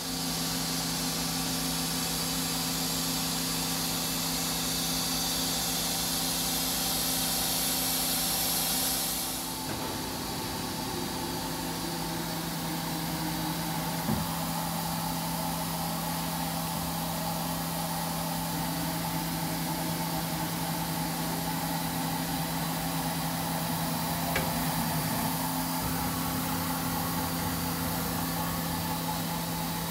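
Miyano BND-34S3L CNC lathe standing powered up and idling with a steady machine hum. A hiss over the hum stops about nine or ten seconds in, and there are a couple of faint clicks later.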